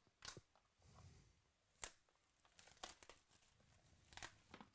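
Clear plastic shrink-wrap being torn and peeled off a sealed trading-card box: faint crinkling and crackling in short snaps, the sharpest a little under two seconds in and again about four seconds in.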